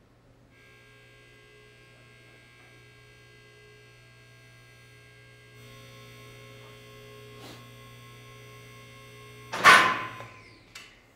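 Hydraulic car lift running with a steady whine that gets louder about halfway through, then a loud metallic clang that rings briefly near the end, followed by a small click. A low electrical hum sits underneath.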